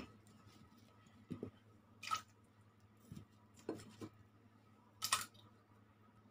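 Pieces of kudzu root dropped one at a time into a stainless-steel pot of water, several short plops and splashes a second or so apart, over a faint steady hum.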